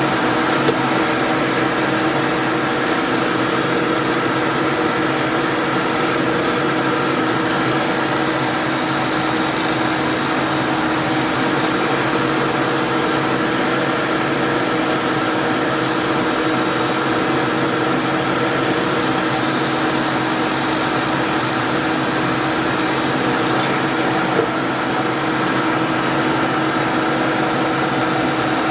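Electric motor of a woodworking power tool running steadily at constant pitch, with a couple of small knocks.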